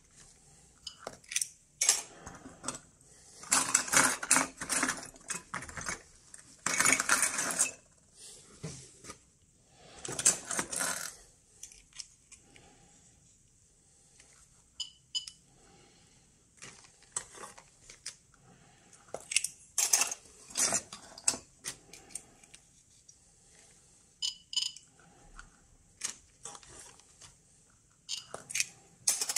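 Plastic zip-lock bag crinkling as it is handled, in several bursts, with scattered light clicks and taps.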